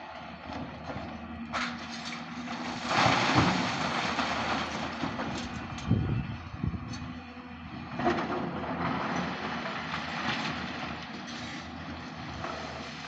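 Heavy mining machinery working: an engine running under load with clattering and knocks, surging louder a few times, with one heavy thump about six seconds in.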